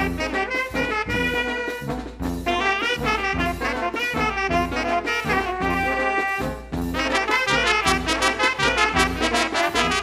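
A small town brass band playing a tune: tuba and euphonium bass lines, trombone, trumpets and saxophone over snare and bass drum beats, breaking into a quick run of short notes in the last few seconds.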